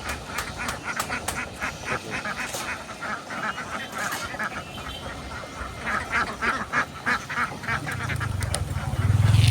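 A large flock of farm ducks quacking, many short calls overlapping in a rapid, continuous chatter. Near the end a low engine hum swells up and becomes the loudest sound.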